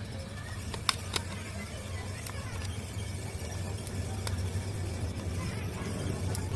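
A steady low rumble with about five sharp clicks scattered through it, the loudest about a second in.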